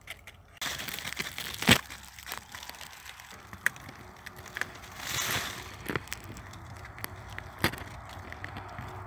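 Zucchini plant leaves and stems rustling and crackling as a hand pushes through them and handles the flowers, with several sharp clicks, the loudest about two seconds in.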